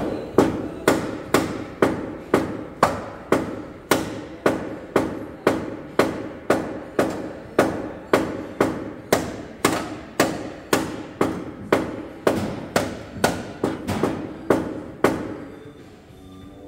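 Steady hand-hammer blows on the damaged front-end metal of a car, about two strikes a second, each with a short metallic ring, stopping near the end.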